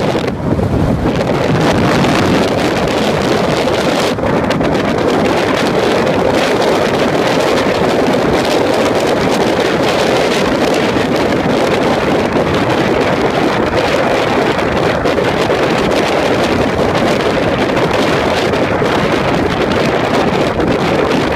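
Steady rush of wind on the microphone over the running and road noise of a 2013 Porsche Boxster driving at speed.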